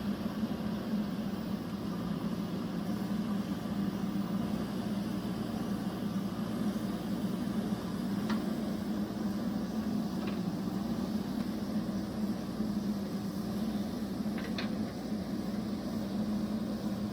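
JCB backhoe loader's diesel engine running steadily, with a few faint clicks partway through.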